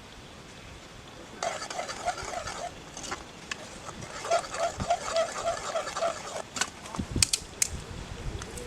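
A spoon stirring masala gravy in a cooking pan: two runs of rhythmic scraping strokes, about four or five a second, then a few sharp clinks of metal on the pan near the end.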